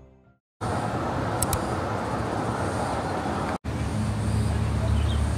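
Steady outdoor traffic noise, a broad hiss with a low rumble of road vehicles. It breaks off briefly a little past halfway, then returns with a stronger low engine hum.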